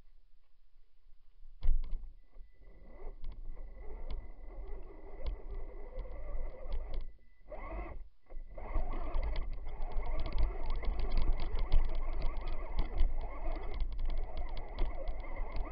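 Onboard sound of a Traxxas Stampede 2WD electric RC truck driving through snow: a steady high motor whine over the rumble and rattle of the chassis, with rapid clicking. It starts with a knock about two seconds in, cuts out briefly twice around the middle, then runs louder.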